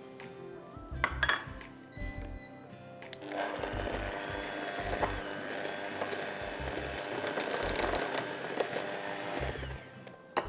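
Electric mixer running steadily for about six seconds, beating dry flour, sugar and butter into cookie dough, starting a few seconds in and cutting off near the end. A couple of bowl clinks come before it, and background music plays underneath.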